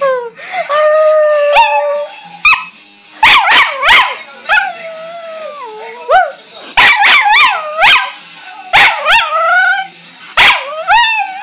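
A small terrier howling over and over, each howl rising and falling in pitch, broken by sharp, short yips.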